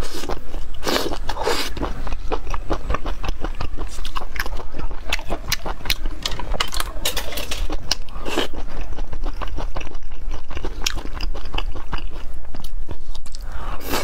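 Close-up wet chewing and biting of chili-sauced grilled squid on skewers: dense small smacking clicks, with a few louder bites about a second in, half a second later, and again past the eight-second mark. A steady low hum runs underneath.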